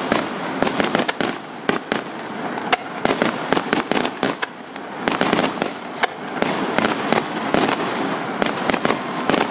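Aerial fireworks display: dozens of sharp bangs from bursting shells in quick, uneven succession.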